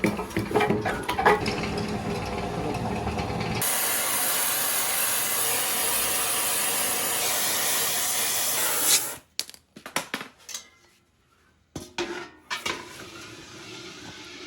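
Workshop tool noise: a few seconds of mechanical clatter and rumble, then a loud, steady hiss for about five seconds that cuts off abruptly, followed by scattered clicks and knocks.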